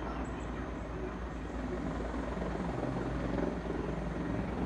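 Helicopter's rotor beating in a steady low chop as it comes in to land.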